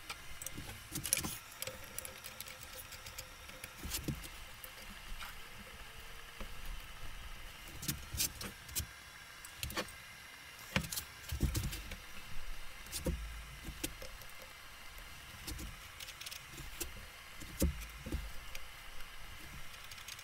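Irregular clinks, taps and knocks of steel fixture pieces, bolts and a clamp being handled against a lathe bed section on a steel workbench, with a few duller thumps as the heavy assembly is moved and set down.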